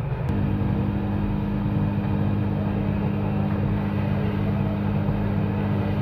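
A hot air gun starts with a faint click about a third of a second in, then its blower runs with a steady, even hum. It is heating the new USB charging port to solder it onto the phone's charging board.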